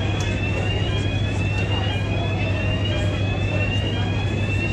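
Warning alarm on the Highspeed 7 fast ferry sounding as its hatch opens: a rising electronic sweep repeated about once a second, over a steady low machinery hum.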